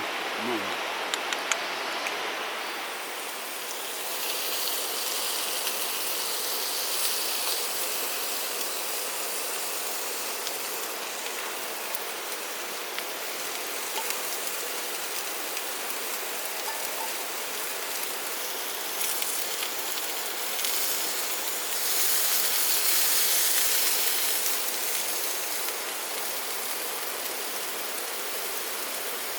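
Steady rushing noise of running water, swelling a little about two-thirds of the way through, with a few faint ticks near the start.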